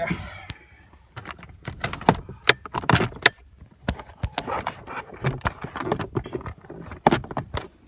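Irregular clicks, knocks and light rattles from hands handling parts and trim under a car's dashboard.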